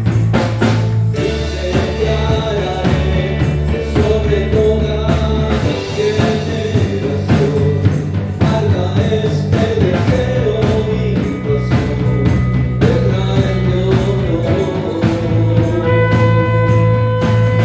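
Christian worship band music in an instrumental stretch between sung verses: steady bass notes and a drum beat under melodic electric-guitar lines.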